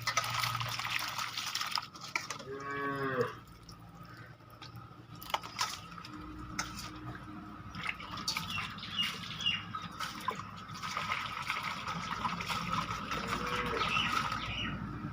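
A cow moos once, about two and a half seconds in, over steady splashing and dripping of water.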